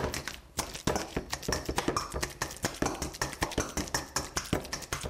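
Wire potato masher mashing avocado in a stainless steel mixing bowl: rapid, irregular taps and knocks of the metal masher against the bowl, several a second, with soft squelching of the avocado.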